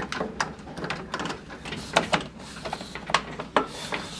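Plastic inner cover of a microwave door being fitted and pressed back onto the door: a run of irregular light clicks and knocks of plastic on plastic.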